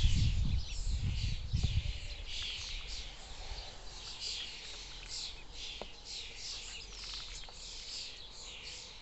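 A group of ducklings peeping constantly, many short high calls overlapping. A low rumble runs under them for the first two seconds.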